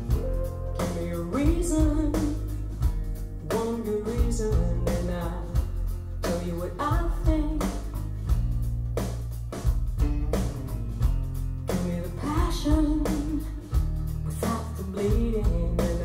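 Rock song with a woman singing over guitar, bass and drums, played back through B&W 685 S2 bookshelf speakers.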